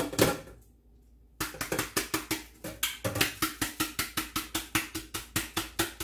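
Dry rice being poured from a measuring cup into a blender jar, the grains rattling against the jar as a rapid run of clicks, about eight to ten a second, starting about a second and a half in.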